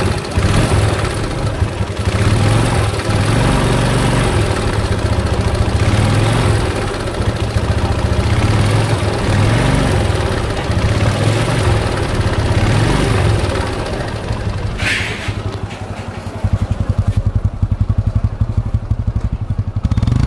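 TVS Apache RTR 150 motorcycle engine running with an abnormal noise, revved up and down several times, then settling to a fast, even pulsing idle near the end. The engine is burning oil, and the mechanic traces its sound problem to a loose piston and connecting rod with side play.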